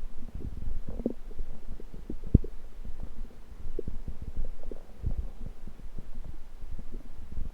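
Human stomach and intestines rumbling: irregular low gurgles and small pops, the loudest a sharp pop a little over two seconds in.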